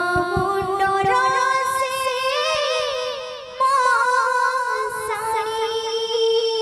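A woman singing an Odia kirtan devotional song through a microphone, in long held notes with wavering ornaments; a new, louder phrase begins about halfway through.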